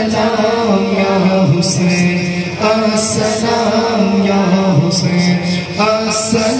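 A man chanting a salam, a devotional Urdu recitation for Hussain, into a microphone, in long melodic phrases that rise and fall over a steady low tone.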